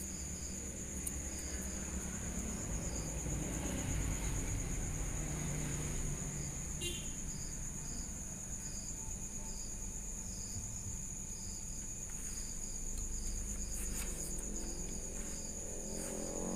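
Crickets chirping: a steady high trill with a regular pulsing chirp over it, and a few faint clicks partway through and near the end.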